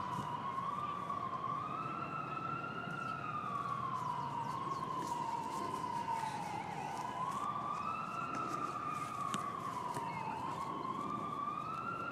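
Emergency-vehicle siren in a slow wail, its pitch gliding up and down about every four to five seconds.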